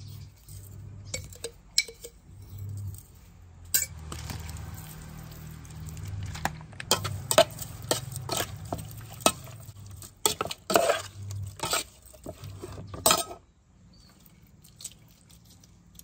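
A spoon clinking and scraping against an aluminium pot while tossing sliced grilled meat with chili flakes. The sharp clinks come in quick, irregular succession, thickest in the second half, and stop a few seconds before the end.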